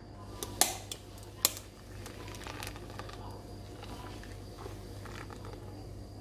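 Liquid flan custard pouring from a glass blender jug into an aluminium tube pan: a soft, steady pour, with a few sharp clicks about half a second and a second and a half in.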